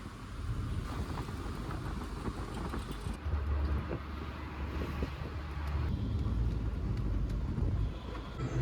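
Steady low rumble of a vehicle in road traffic, changing abruptly about three seconds in and again about six seconds in.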